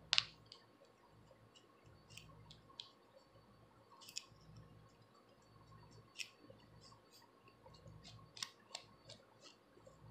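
Faint scratching and scattered sharp clicks of a plastic comb's tail and long acrylic fingernails working across the scalp to lift dandruff flakes, the loudest click right at the start.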